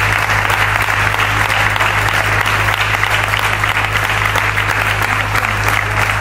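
Audience applauding steadily, a dense crackle of many hands clapping that does not let up.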